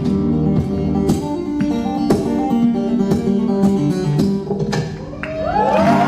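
An amplified acoustic guitar is played solo, in plucked notes and chords with sharp attacks. The playing stops about five seconds in, and the audience breaks into whoops and cheering.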